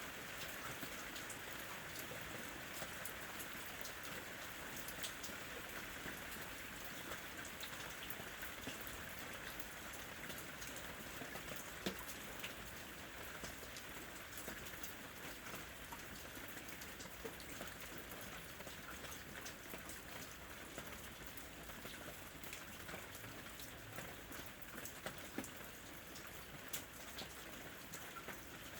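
Steady ambient rain, a soft even hiss with many small drops pattering on a surface.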